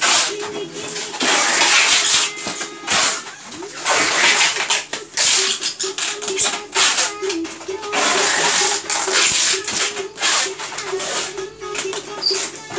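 Plastic stretch wrap being pulled off its roll and wound around styrofoam shipping boxes, in repeated noisy pulls about a second long, over background music with a steady wavering melody.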